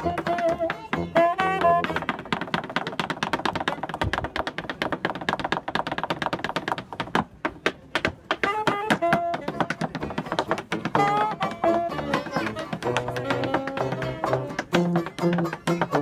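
Tap dancing on a wooden board, a fast run of clicking taps, with a small street band playing along: a saxophone carrying the tune over tuba bass notes.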